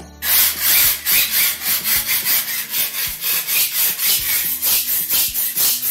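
Metal putty knife scraped hard back and forth over ceramic wall tiles coated with adhesion primer, in quick even strokes of about four a second. It is a force test of the primer's grip on the tile.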